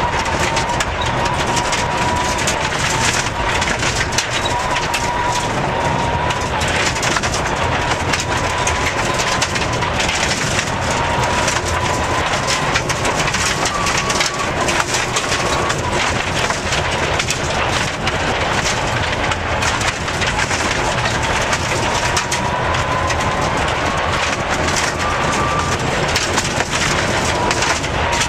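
Rally car at speed on a gravel stage, heard from inside the cabin: the engine runs hard under constant gravel and stones rattling against the underside. A high gearbox whine climbs slowly with speed and drops back at each gear change, about three times.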